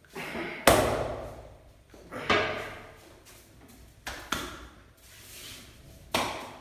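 Hands slapping the body during a massage: about four loud, sharp strikes spaced roughly two seconds apart, some in quick pairs, each dying away over about half a second. The loudest comes just under a second in.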